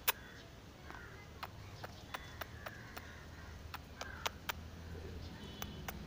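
Sharp clicks, a dozen or more at irregular intervals, the loudest right at the start, over a low steady hum. Two faint short squeaks from an Alexandrine parakeet come about a second in and about four seconds in.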